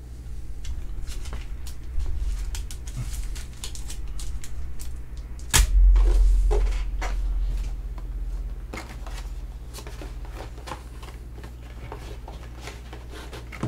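Handling noise on a tabletop: scattered clicks, taps and light knocks as a card in a plastic holder and card boxes are moved about, with one loud thump and a low rumble about five and a half seconds in.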